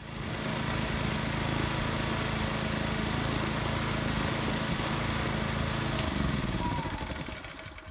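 Harbor Freight Predator 212cc single-cylinder OHV engine running steadily during its break-in run. About six seconds in it slows and dies away as it is shut off.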